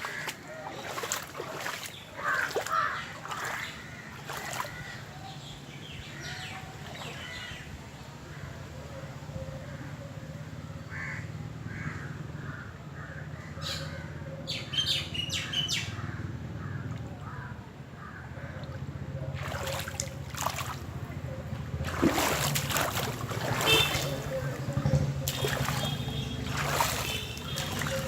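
Crows cawing over a steady low background, then water splashing and sloshing from about two-thirds of the way through, with faint voices in the distance.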